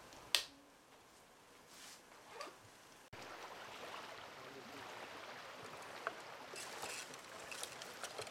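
A sparkling drink fizzing as it is poured from a glass bottle into plastic cups, with one sharp tap shortly after the start. After an abrupt change about three seconds in, steady outdoor ambience follows, with light rustling and twig crackles as dry branches are piled onto a bonfire heap near the end.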